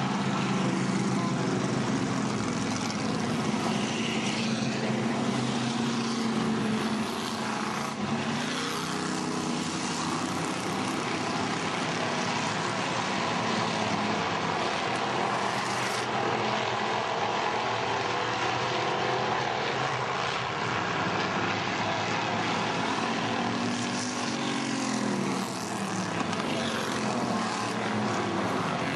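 A pack of hobby-class stock cars racing on a paved oval, many engines running together in a dense, steady drone, with their pitch rising and falling as the cars pass through the turns.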